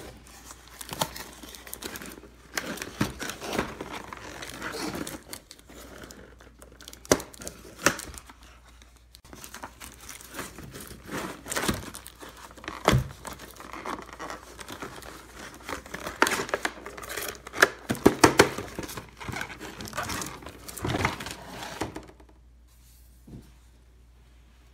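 Clear plastic wrap and a plastic blister pack being pulled open by hand: irregular crinkling and crackling with tearing and a few sharp snaps. The noise stops near the end.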